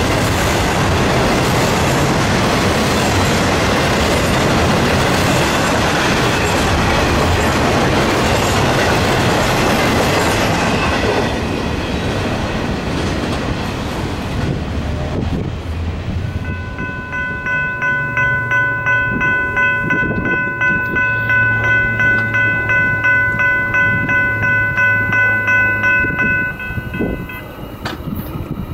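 Double-stack intermodal freight train's well cars rolling past, a loud steady rumble and clatter of wheels on rail that fades out about eleven seconds in. Later a steady ringing tone pulses about twice a second for some ten seconds, then stops.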